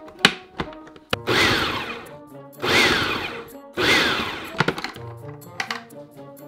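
Food processor pulsed three times, its blade chopping raw cauliflower florets into rice-sized bits; each pulse is about a second of whirring and chopping, with the motor's whine dropping in pitch as it runs down.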